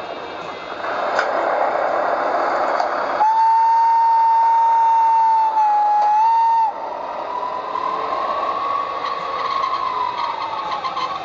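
Sound decoder of a Brawa HO-scale E95 model electric locomotive, played through its small speaker: a running hum and hiss, then a steady horn blast of about three and a half seconds starting about three seconds in, then an electric motor whine that rises and then falls in pitch.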